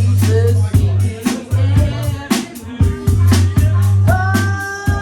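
Loud music with a deep, sustained bass line under drum-kit hits. About four seconds in, a pitched phrase slides up and then holds briefly over the beat.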